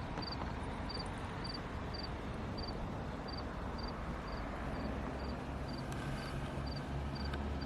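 A cricket chirping steadily in short pulsed chirps, about two a second, over a steady hiss and low hum that swells a little near the end.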